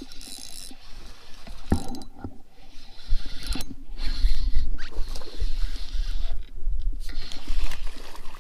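Handling noise while a hooked largemouth bass is fought from a boat on a spinning rod: a sharp knock about two seconds in, then irregular low knocks, rubbing and rustling from the rod, reel and a hand working near the camera.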